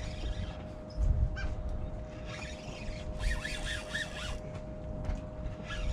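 Wind buffeting the microphone over a steady thin hum, with a run of short high chirps from about two to four seconds in.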